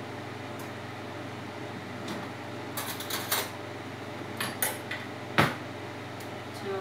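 Metal cutlery clinking and rattling in a kitchen drawer as a spoon is taken out, in a few short bursts, then one sharp knock a little over five seconds in, the loudest sound, over a steady low hum.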